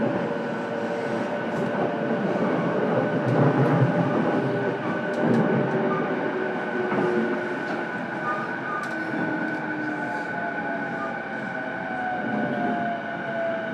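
Running sound heard inside a JR East E233-8000 series electric motor car: a steady wheel-and-rail rumble, with whining tones from the traction motors and inverter that hold or slowly glide in pitch, and occasional ticks over the track.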